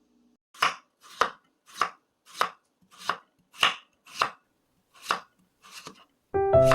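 Kitchen knife chopping food on a cutting board in slow, even strokes, about nine cuts roughly half a second apart; piano music comes back in near the end.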